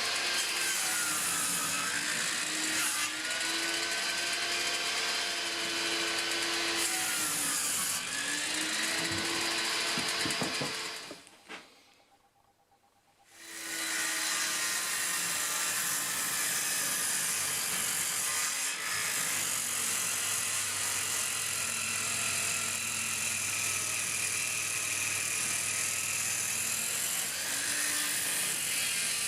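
An electric power tool running, its motor pitch dipping and recovering as it works. It winds down about eleven seconds in and starts up again a couple of seconds later.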